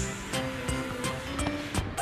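Background music with a steady beat of light percussion ticks over held notes.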